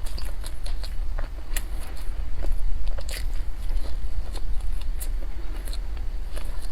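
Close-up chewing and biting of a nut-filled dalieba bread loaf with walnuts and red bean, full of small sharp crackles and crunches at an irregular pace.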